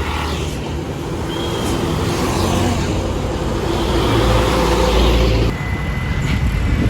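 Large tour bus engine running and pulling away. Its low rumble builds steadily, then drops off suddenly about five and a half seconds in. A thin, steady high tone sounds briefly just after that.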